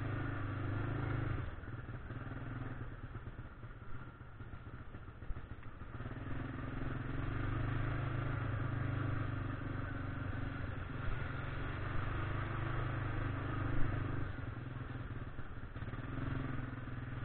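1999 Yamaha Grizzly 600 ATV's single-cylinder four-stroke engine running as the quad rides along a rough, overgrown trail. The engine eases off about two seconds in, then pulls steadily again from about six seconds, with a few short knocks and clatter from the rough ground.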